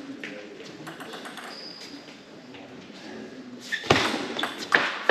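Table tennis ball clicking sharply off the paddles and table in quick succession as a rally starts, a little under four seconds in; before that only faint murmur from the hall.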